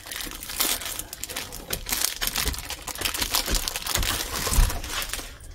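A package crinkling and crackling as it is worked open by hand to pull out the item inside, with a few low bumps near the end.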